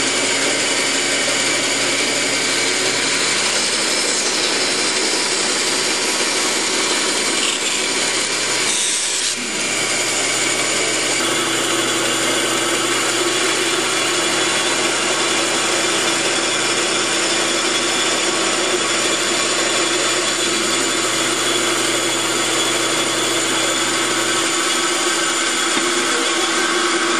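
Band saw running and cutting through a thick block of wood, slicing a thin slab off it. The sound is a steady, loud sawing hiss over the motor's hum.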